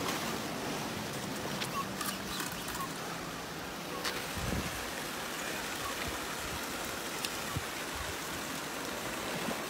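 Steady rushing noise of moving water, with a few faint clicks.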